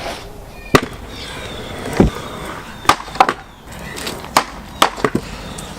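Freestyle scooter riding on a quarter pipe: wheels rolling, with about eight sharp clacks as the deck and wheels hit and land on the ramp.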